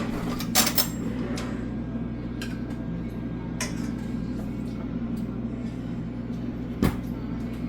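A few sharp clinks and knocks of utensils against pots and pans over a steady low hum, with the loudest knock near the end.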